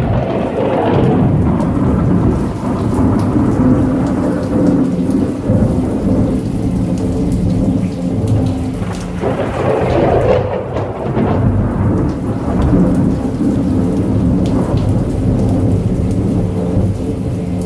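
Heavy rain falling steadily, with deep rumbling thunder. One roll of thunder swells at the very start and another builds about nine seconds in.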